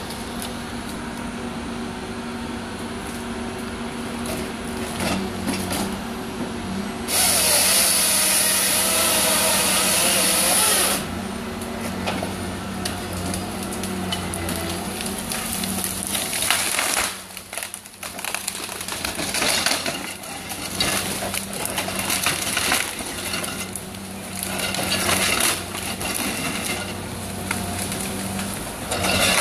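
Cat 550 harvester's engine and hydraulics running steadily while its Fabtek harvester head works a large spruce. About seven seconds in, the head's saw cuts through the trunk for about four seconds, the loudest sound here; in the second half the feed rollers drag the stem through the delimbing knives with irregular cracking and knocks.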